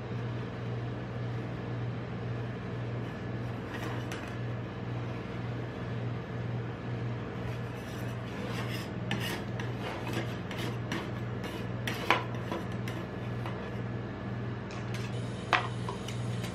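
Metal spatula scraping and rubbing across the frozen steel plate of a rolled-ice-cream cold plate, clearing off leftover ice cream. Several sharp clinks of metal on metal come in the second half, the loudest about twelve seconds in, over a steady low hum.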